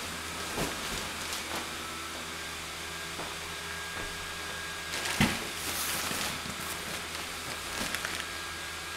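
Electric blower fans of inflatable Halloween decorations running steadily with a constant whirring hum, a few light bumps of handling over it, the loudest about five seconds in.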